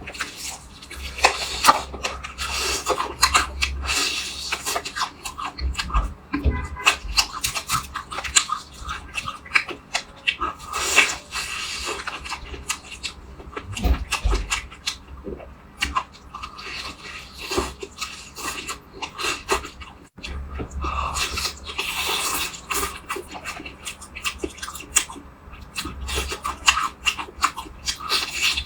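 Eating sounds: chewing and crunching of food in a dense, uneven run of small clicks and smacks, recorded close up.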